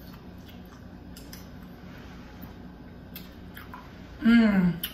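Faint wet chewing and mouth clicks from a woman eating a mouthful of spaghetti squash with meat sauce, close to the microphone. About four seconds in, a short closed-mouth "mmm" hum of enjoyment, falling in pitch.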